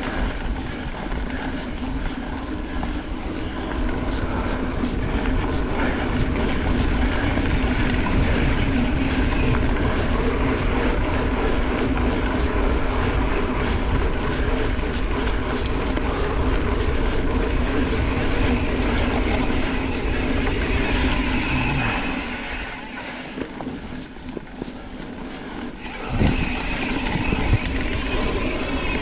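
Mountain bike riding along a dirt trail: tyres rolling and the bike rattling and clicking over the ground. Near the end it quietens for a few seconds, then a sharp knock comes and the rolling noise picks up again.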